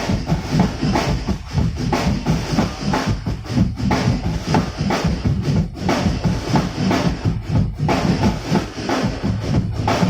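Amplified drum kit and percussion playing a fast, steady beat over a sound system, with heavy bass-drum hits, as in a music sound check.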